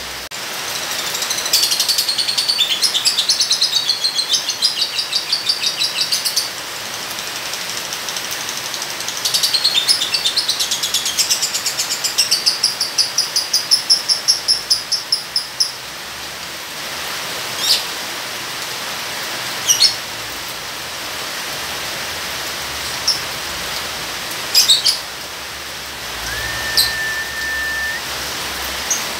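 Lovebird giving its long chattering song (ngekek): two long runs of rapid, repeated high chirps, then a few single short chirps, over a steady hiss of rain. Near the end a steady whistle-like tone lasts about two seconds.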